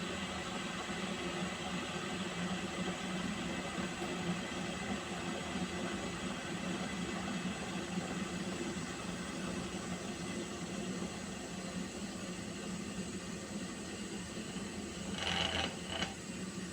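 A pot of water heating toward the boil, giving a steady hiss and low hum. Near the end a brief louder sound is followed by a shorter one.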